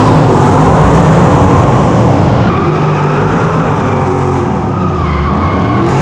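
Drift car engine revving hard with tyres screeching as it slides, easing off slightly about halfway through.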